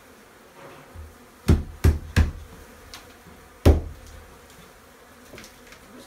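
Four sharp hammer blows breaking away drywall: three in quick succession about a second and a half in, and a fourth near the four-second mark. Under them runs the steady buzz of honey bees.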